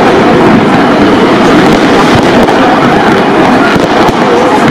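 Many New Year's Eve fireworks and firecrackers going off at once: a loud, unbroken din of crackles, pops and bangs with no pause.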